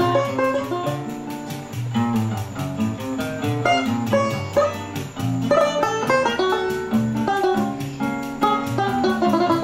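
Live acoustic choro: a banjo picks a fast melody over an acoustic guitar, with a light, steady, quick percussion tick underneath.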